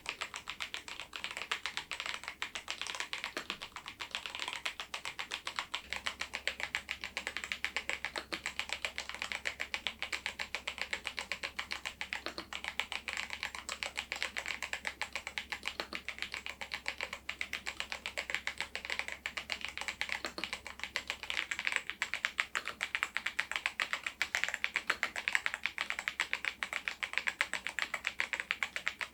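Machenike K500 PRO mechanical keyboard with its stock switches and keycaps being typed on continuously, a dense, even stream of key clicks.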